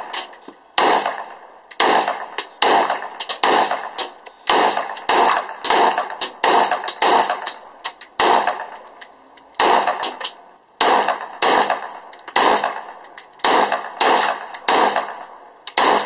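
Semi-automatic shots from a JP Gladiator AR-15 rifle fired in quick succession: about twenty sharp reports, each with a short echoing tail, mostly less than a second apart, with one pause of about a second and a half near the middle.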